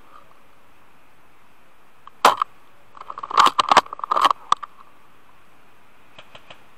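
Irregular sharp clicks and knocks over a faint steady hiss: one sharp knock about two seconds in, then a quick, uneven cluster of them from about three to four and a half seconds, and a few faint ticks near the end.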